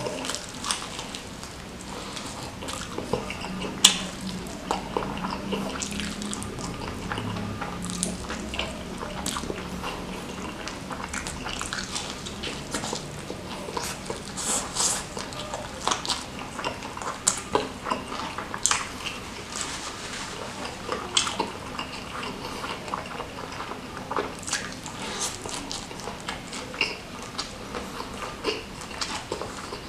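Close-miked eating of sambal-covered smashed fried chicken (ayam geprek) by hand: wet chewing, lip smacks and crisp crackles coming in quick, irregular clicks.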